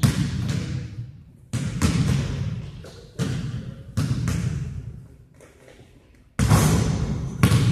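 Basketballs bouncing hard in a large gymnasium: about six separate heavy thuds, a second or two apart, each trailing off in the hall's long echo.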